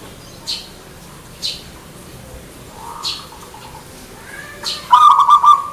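Zebra dove (perkutut) cooing: a soft coo about three seconds in, then a loud burst of rapid staccato coos near the end. Short sharp high chirps sound about once a second throughout.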